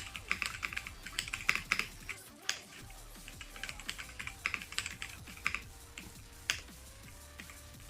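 Kreo Hive 65 mechanical keyboard being typed on: irregular runs of clacky key presses, dense in the first two seconds and again around the middle, with a louder single keystroke a little after six seconds in.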